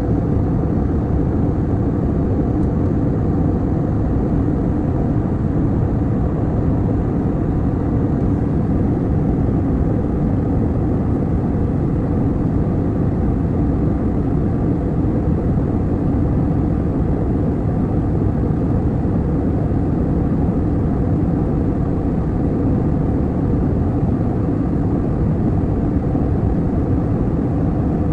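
Steady engine and airflow noise of a passenger jet cabin in flight, a constant deep rumble with no change in level.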